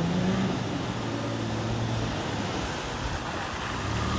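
Toyota 4Runner's engine running under load as it drives through a muddy water hole and climbs out, with water and mud churning around its tyres.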